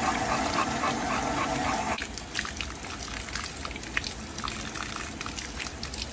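A bulldog panting quickly, about five breaths a second, which stops suddenly about two seconds in. Then water from a garden hose runs and splashes over the dog's head and drips off its coat as it is rinsed.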